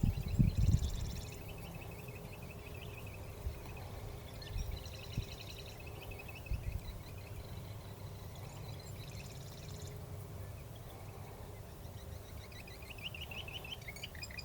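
Birds chirping and trilling in series of short high notes, over a low wind rumble with a few bumps in the first second.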